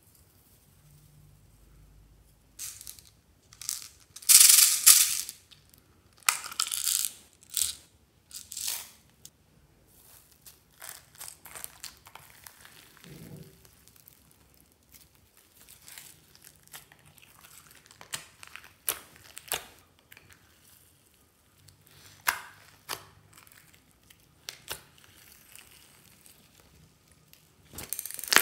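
Slime being mixed by hand and spatula with beads, glitter, sequins and foam balls in a glass tray: a run of crackling, rustling bursts and sharp clicks, loudest a few seconds in.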